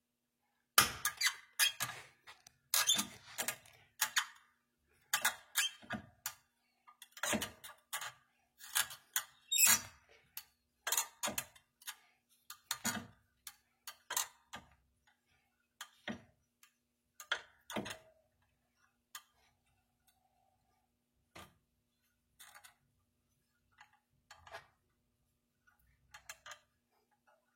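A wrench turning a heated, seized fine-thread nut off its bolt, the steel threads squeaking and clicking in short strokes about one or two a second, thinning out in the last third.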